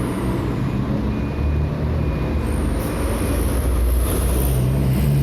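Heavy construction machine's diesel engine running steadily with a deep hum, with a faint high beep repeating briefly a few times.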